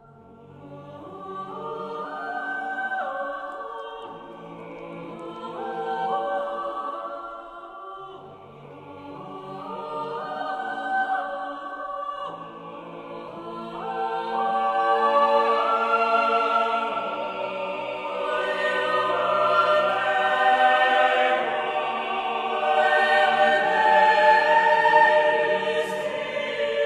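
Choral music: layered voices holding long, sustained chords in slow swelling phrases, growing louder from about halfway on.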